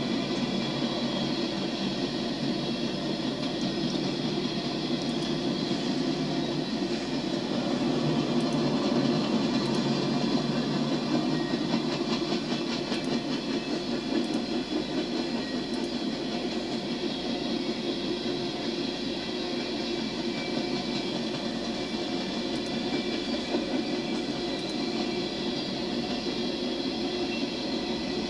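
Coal train's hopper cars rolling steadily past on the track, played back from a railcam live stream through computer speakers.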